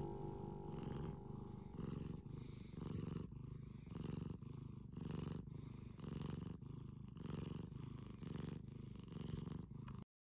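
Bengal cat purring while being stroked on the head, the purr swelling and easing with each breath about once a second. It cuts off suddenly near the end.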